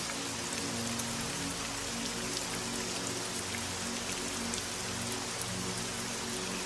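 Steady rain with a dense patter of fine drops, over soft music holding long low notes.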